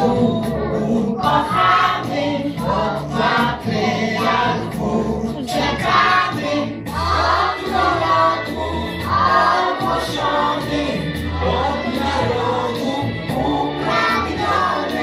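A Christmas carol sung by a choir over an instrumental backing, with the bass line growing firmer about seven seconds in.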